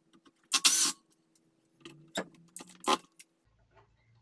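Cordless drill-driver backing screws out of a metal inverter casing: a faint steady motor hum, broken by loud metallic rattling and scraping about half a second in and again two or three times around two to three seconds.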